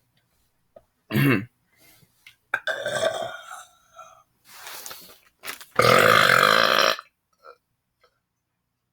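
A man burping several times: a short burp about a second in, a longer, rougher one around three seconds, and the loudest, a long burp lasting about a second, near six seconds.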